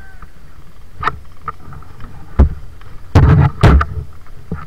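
Airsoft gunfire: single sharp cracks about a second in and again at about two and a half seconds, then two louder short bursts a little after three seconds. A steady rumble of wind and movement runs underneath.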